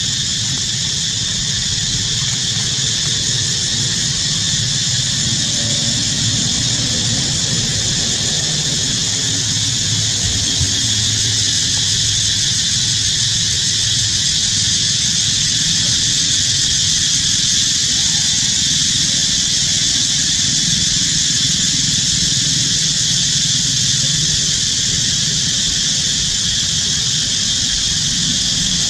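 Steady high-pitched drone, unchanging throughout, over a low rumble.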